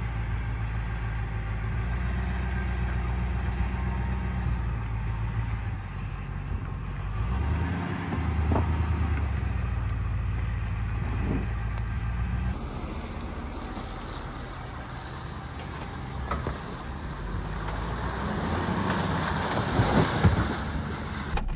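Full-size diesel truck driving slowly on a dirt trail: a steady low engine hum for the first twelve seconds or so, then an abrupt change to a noisier rumble that grows louder near the end.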